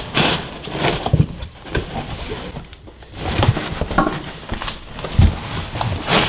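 Dense packing foam rubbing and scraping against a small 3D printer and the cardboard box as the printer is worked free by hand, in a run of irregular scrapes and soft knocks.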